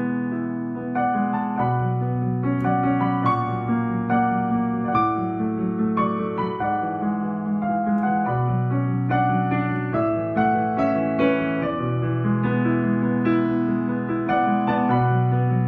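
Digital piano playing a slow melody of single notes and chords in the right hand over long, held bass notes that change every couple of seconds.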